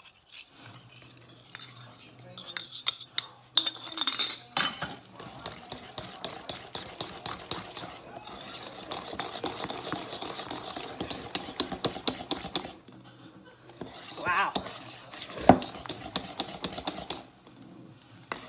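Sourdough pancake batter being beaten by hand with a wire whisk in a mixing bowl: a fast, busy clicking and scraping of the wires against the bowl, with clinks of a metal spoon. One sharp knock, the loudest sound, comes near the end.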